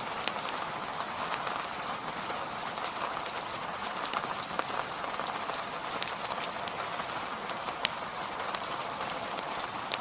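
Steady rain hiss mixed with the pops and crackles of burning firewood, scattered irregularly throughout, one pop a little louder about three-quarters of the way through.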